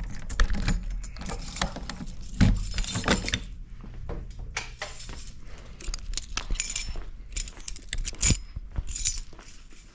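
A ring of keys jangling, with scattered clicks and knocks. It is busiest in the first few seconds, and there is a sharper knock near the end.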